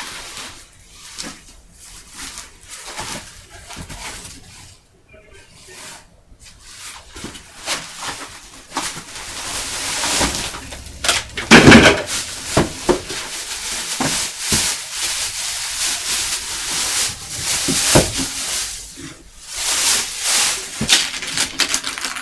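Cardboard board-game box and its packing being handled and opened: irregular rustling and scraping with scattered knocks, busier in the second half and loudest about twelve seconds in.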